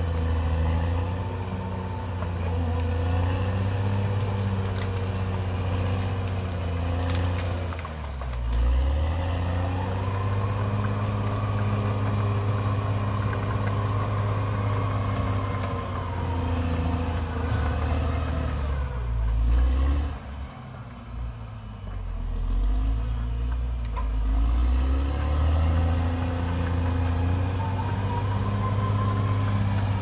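CAT D6R XL crawler bulldozer's diesel engine running as the dozer works, its speed rising and falling. It eases off briefly about twenty seconds in, then picks up again.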